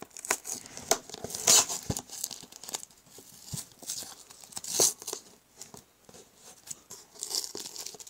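Plastic packing tape being slit and torn off a cardboard shipping box, with irregular scraping and crinkling of tape and cardboard. The loudest rips come about one and a half seconds in and just before five seconds, with another near the end.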